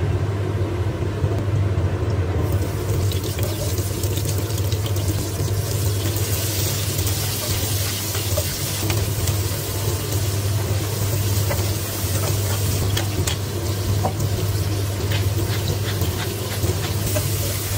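Cooking oil poured into a non-stick wok, then sizzling from a couple of seconds in as chopped onion, tomato and ginger go in and are stirred, with many small clicks and scrapes of the spatula on the pan. A steady low hum runs underneath.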